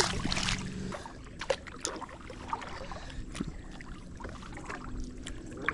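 Scattered light knocks and taps of handling on a kayak, with faint water sounds; the sharpest knock is right at the start.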